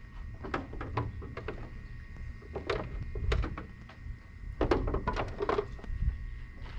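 Workshop noise: irregular metal knocks and clanks over a low rumble, bunched in a few quick clusters.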